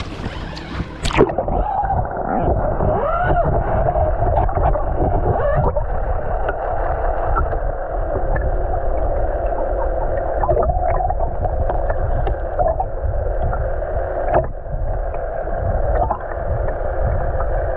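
Underwater sound picked up by a submerged camera: about a second in the sound turns muffled, leaving a steady watery rush with scattered clicks.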